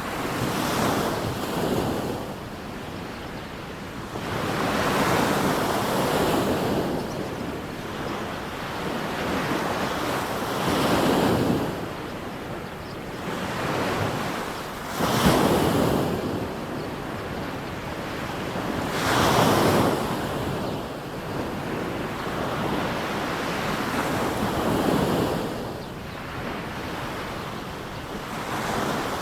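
Sea waves breaking and washing up a sand beach, one surge of surf every four to six seconds.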